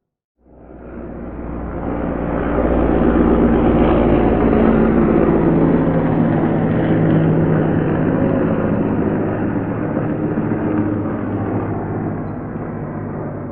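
Helicopter flying over and passing by. The rotor and engine sound comes in about half a second in, swells quickly to its loudest a few seconds later, then slowly fades.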